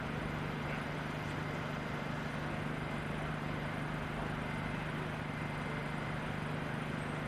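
Steady low drone of idling diesel engines from parked fire engines, with an even background hiss and no changes.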